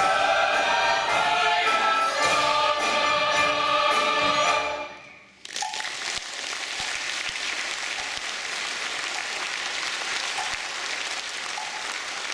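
A mixed choir sings the close of a song and stops about five seconds in. The audience then breaks into steady applause.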